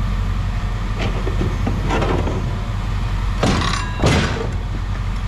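Steady low mechanical hum with several short scraping and knocking sounds, about four in all, as a heavy metal scrap item is shifted and gripped by hand.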